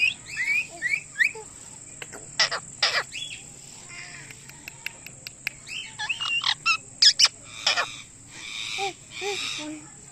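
Indian ringneck parakeet giving loud, shrill calls and chirps, with quick gliding chirps at first, sharp screeches about two and a half, three and seven seconds in, and raspier chattering calls near the end.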